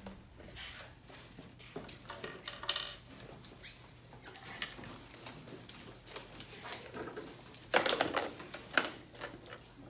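Small plastic medical supplies being handled: light clicks and rattles of vacutainer tubes and items picked out of a plastic supply caddy, with the loudest clatter about eight seconds in.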